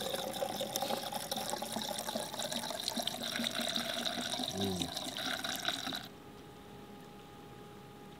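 Orange coolant pouring through a funnel into a plastic coolant expansion tank, a steady liquid rush that stops abruptly about six seconds in.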